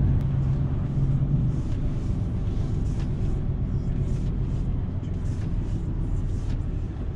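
Lorry engine and rolling noise heard inside the truck's cab as it drives slowly, a low steady rumble. A steady low hum in it drops away about a second and a half in.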